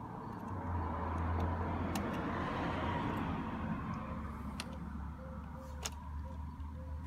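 A car passing by, its noise swelling and fading over a couple of seconds, over a steady low hum. A few light sharp clicks come from a plastic instrument cluster being handled with a small screwdriver.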